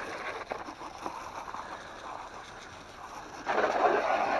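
Water spray rinsing the RC car's wheel and axle, a steady hiss that grows louder about three and a half seconds in.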